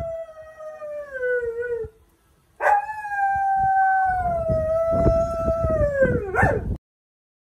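German shepherd howling with its head raised. One long howl slides down and fades out about two seconds in. After a short gap a second howl starts, holds, sinks lower and ends with a brief upward break.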